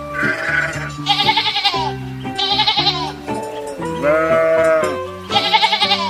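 Sheep bleating again and again, about five wavering bleats each under a second long, over background music with sustained notes.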